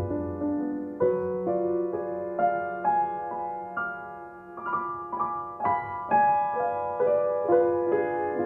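Background music: soft, gentle piano playing a slow melody of sustained notes.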